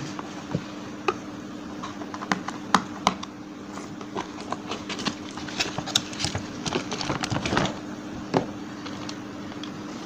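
Cardboard toy box being opened by hand and a hard plastic toy duck taken out of its plastic wrapping: scattered clicks, taps and rustling, thickest about seven seconds in, over a steady low hum.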